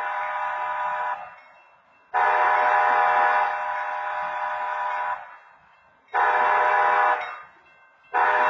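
Wayside horn at a railroad grade crossing sounding the long-long-short-long crossing pattern: the end of one long blast, a long blast of about three seconds, a short blast, and the start of another long blast near the end. It sounds with no train approaching, a false (phantom) activation of the crossing equipment.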